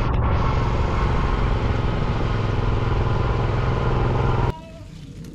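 A motorbike running while it is ridden, its engine under steady rushing wind noise over the microphone. The sound cuts off abruptly about four and a half seconds in.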